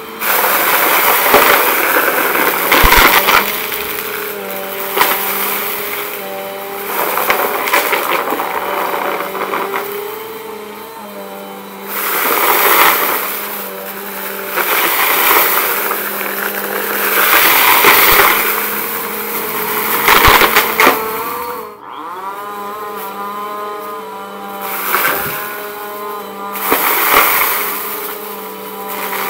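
Bissell compact upright vacuum cleaner running on carpet, its motor humming steadily while it sucks up a pile of crunchy debris, with surges of crunching and rattling every few seconds as the debris is pulled in. About three-quarters of the way through, the motor's pitch drops for a moment and climbs back.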